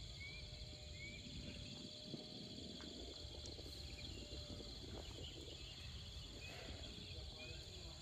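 Faint outdoor ambience of insects trilling steadily at a high pitch. A few short rising chirps repeat in the first second or so, over a low rumble.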